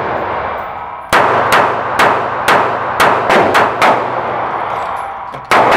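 Taurus PT738 TCP .380 ACP pocket pistol firing a string of about eight shots, roughly two a second, starting about a second in, with one more shot near the end. Each report rings on in the echo of an indoor range.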